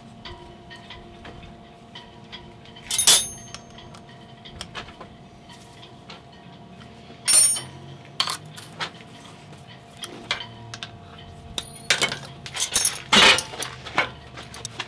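Metal hand tools and MIG torch parts clicking and clinking against each other and the bench, with sharp ringing clinks about three seconds in, about seven seconds in, and a quick cluster near the end. A faint steady hum runs underneath.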